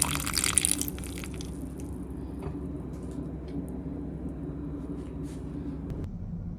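Intro music and sound tailing off in the first second, then a steady low room hum with a few faint clicks.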